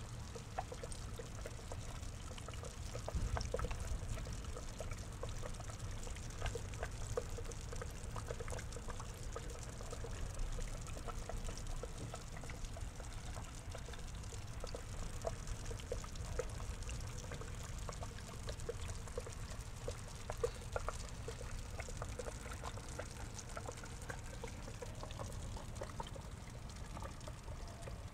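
Water pouring and trickling into a pond, heard through an underwater camera: a steady splashing flow with a low rumble and many scattered small clicks.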